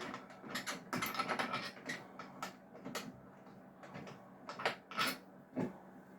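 Handling clicks and knocks from a resin 3D printer as its cover is lifted off and its tray is pulled out: a scatter of sharp plastic-and-metal clicks, with a few louder knocks near the end.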